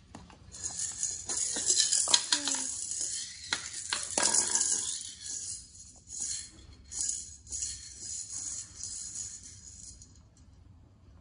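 Maracas shaken hard in uneven bursts, a dense rattling hiss that stops about ten seconds in.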